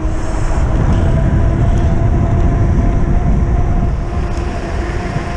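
Wind rushing over the microphone and a steady hum of a mountain bike's tyres on tarmac, descending a road at about 24 mph.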